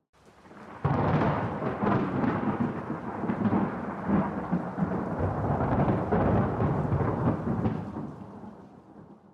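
Thunder: a clap breaks suddenly about a second in and rumbles on for several seconds, then dies away to silence near the end.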